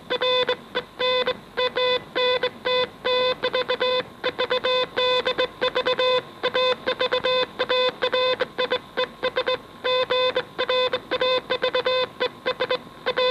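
Morse code on a ship's radio receiver: a single steady beep keyed on and off in quick dots and dashes, with no pause through the whole stretch.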